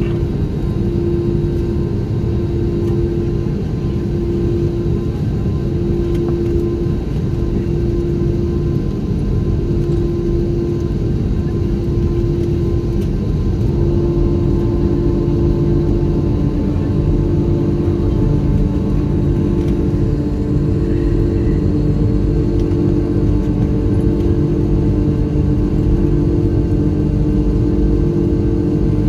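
Cabin noise of an Airbus A321 on the ground: a steady engine and airframe rumble with a hum that pulses about once a second. About halfway, further steady hums join and the noise gets slightly louder.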